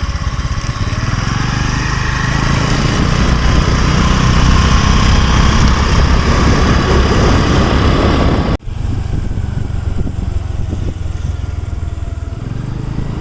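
Steady rumble of a running engine with a noisy wash over it. It breaks off abruptly for an instant about two-thirds of the way through, then carries on.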